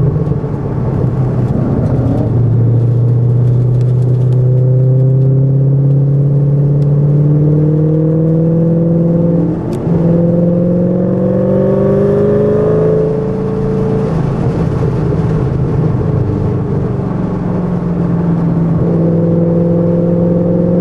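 Shelby GT500's V8 engine heard from inside the cabin, pulling hard around a race track, its pitch climbing steadily under load with brief drops in pitch and level about ten and thirteen seconds in.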